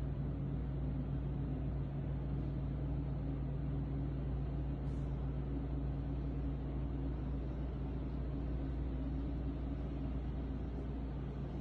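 A steady low machine hum with a constant pitch, over a rumbling background noise.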